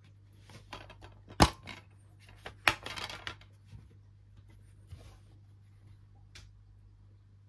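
Clear plastic DVD keep case being handled and opened: a loud sharp plastic snap, a second snap about a second later followed by brief crackling, then a few lighter clicks.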